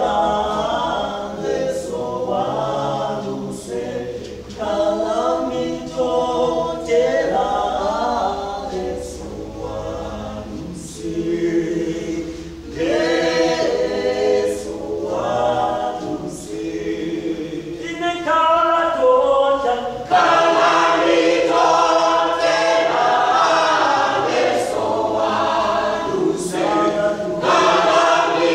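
A church choir singing a gospel song in unaccompanied harmony, phrase after phrase, growing fuller and louder about two-thirds of the way through.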